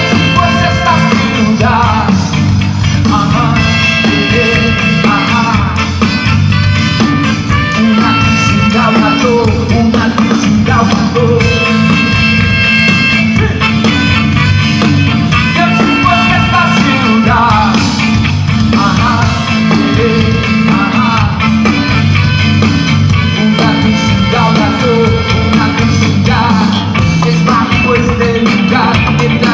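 Ska-rock band playing live at full volume through an instrumental stretch of a song: a driving rhythm section under held high notes and melodic lead lines, with no singing.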